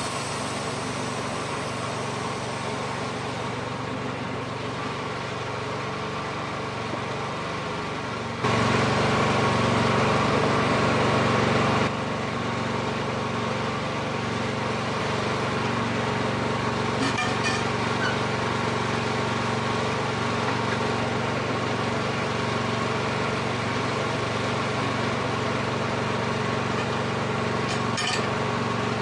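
Woodmizer sawmill's small engine running steadily. It becomes abruptly louder for a few seconds about a third of the way in, then drops back.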